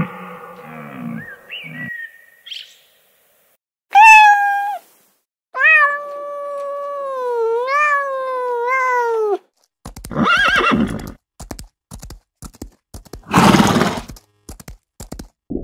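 Horse whinnying twice near the end, with sharp hoof clicks between the calls. Before that come a short high animal cry and a long wavering cry that rises and falls in pitch.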